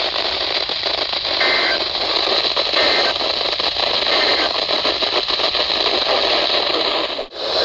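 Weather radio receiver hissing with static on an open channel, with no broadcast coming through. It cuts out briefly near the end.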